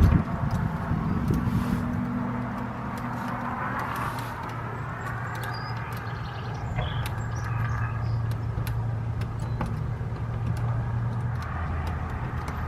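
A road vehicle's engine running as a steady low hum, a little louder in the second half, with faint scattered small clicks over it.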